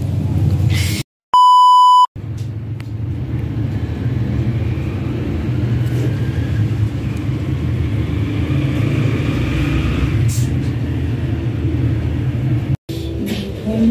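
A single loud, steady electronic beep of under a second about a second in, cut in with dead silence on either side. Around it, a steady low rumble of background noise.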